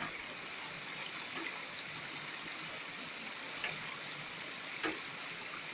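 Shallow stream running steadily over rock, with a few brief splashes as water sloshes in and out of a metal gold pan being swirled and dipped to wash out the light sediment.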